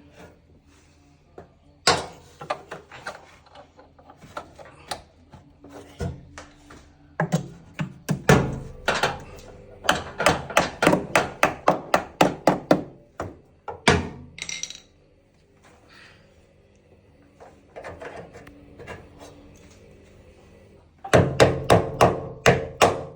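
Hammer striking a washing machine shock absorber during its repair: scattered single knocks, then quick runs of about four blows a second, with a pause before the last, loudest run starts near the end.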